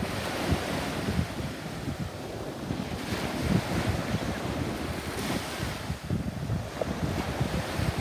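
Small ocean waves breaking and washing up a sandy beach in a steady surf wash, with wind buffeting the microphone in irregular low gusts.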